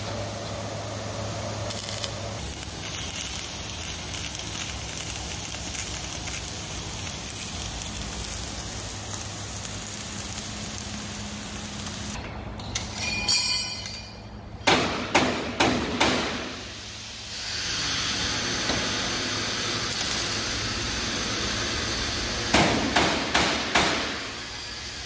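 MIG welding on steel checker plate: the steady crackling hiss of the welding arc, broken twice, about halfway and near the end, by a quick run of four or five hammer blows on metal.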